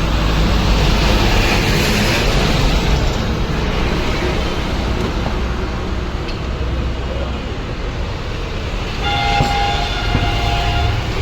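Loud, steady rumble of heavy traffic or a passing vehicle, with a horn sounding for about two seconds near the end.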